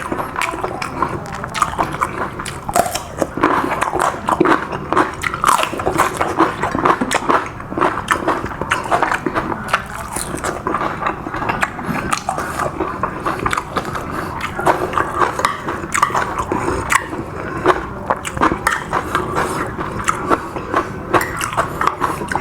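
A person chewing and biting food close to the microphone, with many small wet smacks and clicks that keep up without a break. The food is a seafood holy-basil stir-fry with squid and shrimp.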